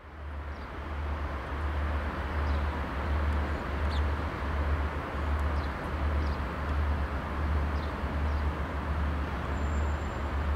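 Diesel-electric locomotive (CFR class 63, Sulzer V12 diesel) running as it rolls slowly up, with a deep, pulsing engine throb under a steady rumble. It fades in over the first second, and birds chirp faintly above it.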